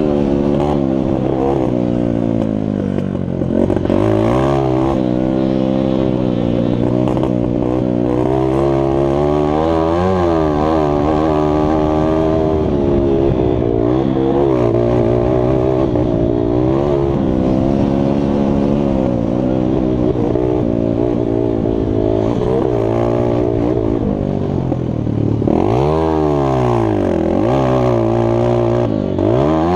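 Mini motocross bike engine revving hard and falling back again and again as it is ridden around a dirt track. Twice near the end the revs drop sharply and climb straight back up.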